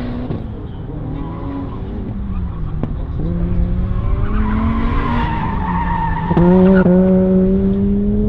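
Autocross car's engine revving up and down as it is driven hard through a cone course, with tires squealing on the asphalt in the middle. About six seconds in, the engine note jumps higher and louder.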